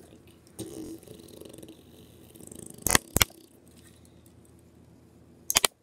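Hard plastic clicks from a LEGO Batwing model being handled: two sharp clicks about three seconds in and a quick run of clicks near the end.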